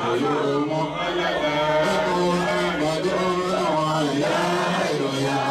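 A man's voice chanting a melodic Islamic devotional chant into a handheld microphone, with long held notes that glide between pitches.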